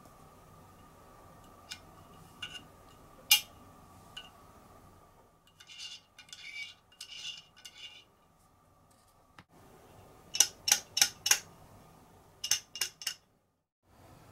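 Light metal-on-metal clicks and scraping as an aluminium extrusion is handled: a drop-in nut with a spring-loaded ball shifts in the T-slot and a thin metal tool pokes at it. There are a few single clicks, a short patch of rattling and scraping, and then two quick runs of sharp clicks, about five and then four.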